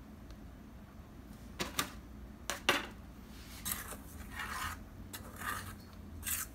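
A metal spoon clinks a few times against a stainless steel mixing bowl, then scrapes round the bowl in repeated strokes, stirring yeast water into flour for pizza dough.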